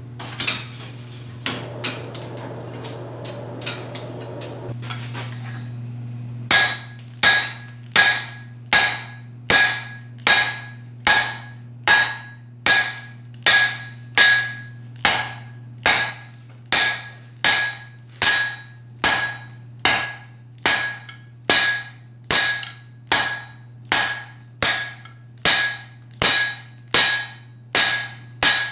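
Blacksmith's hand hammer striking a red-hot steel bar on the anvil edge, a steady run of ringing blows a little over one a second that begins about six seconds in, forging a notch for tongs. A few light clinks come before the hammering.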